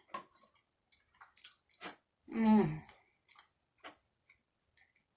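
Close-up mouth sounds of someone eating chili cheese fries: scattered wet clicks and smacks of chewing, with one brief voiced sound from the eater, falling in pitch, about two and a half seconds in.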